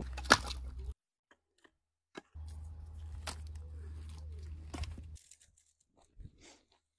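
Dry twigs crunching and snapping and split logs knocking as they are set down in a fire pit, with one loud sharp knock just after the start and a few more later. A steady low rumble sits under the handling, and the sound cuts off abruptly twice.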